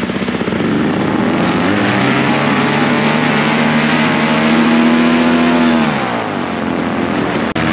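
Tandem paramotor engine and propeller throttling up from idle to full power, holding there for a few seconds, then throttling back down about six seconds in: an aborted takeoff attempt.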